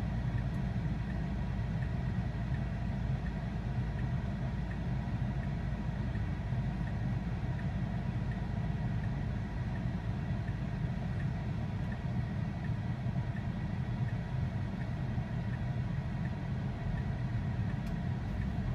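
Steady low rumble of road and traffic noise inside the cabin of a 2020 Tesla Model 3 Performance, with no engine sound since the car is electric.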